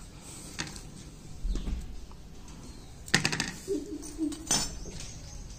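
Metal tongs clinking and scraping against a metal pan of ash as baked bati are picked out one by one: a handful of separate clicks and knocks, the loudest about three seconds in.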